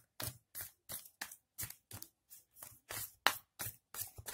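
Tarot cards being thumbed off a deck one at a time: a quick, even run of crisp card snaps, about four or five a second.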